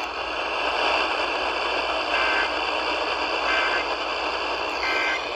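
Steady static hiss from a weak, distant radio signal, with three faint bursts of the EAS SAME header's data tones about a second apart, barely above the noise. The data bursts carry an Emergency Alert System header, here a severe thunderstorm watch (SVA).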